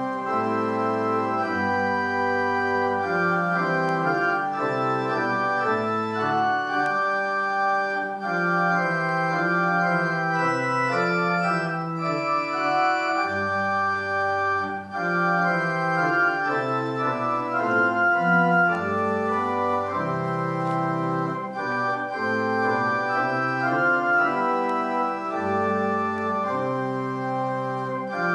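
Organ playing a slow piece in sustained chords, with held bass notes that change every second or two.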